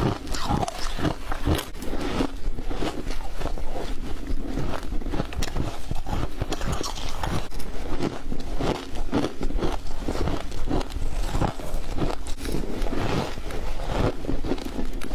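Someone biting and chewing freezer frost, a steady run of many quick, crisp crunches.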